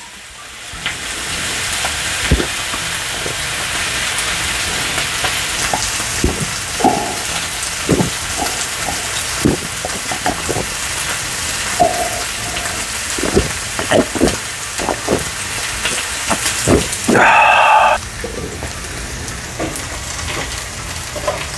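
Beef steaks sizzling steadily on a hot griddle, under a string of short gulps as a mug of beer is drunk down. About 17 seconds in, a louder sound lasts about a second.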